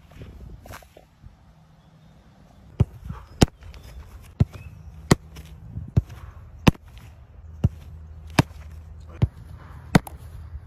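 A football kicked from close range and caught in wet Uhlsport goalkeeper gloves, again and again. Sharp smacks come in pairs, kick then catch, about two-thirds of a second apart, with a pair every second and a half or so from about three seconds in.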